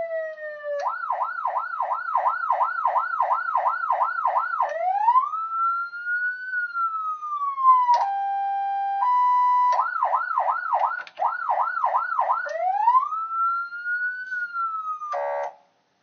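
HornBlasters 100-watt electronic PA siren sounding through its speaker, switched by hand between modes: a fast yelp warble, a slow rising and falling wail, and a steady horn tone stepping from a lower to a higher pitch in the middle, then yelp and wail again before it cuts off near the end. Really loud.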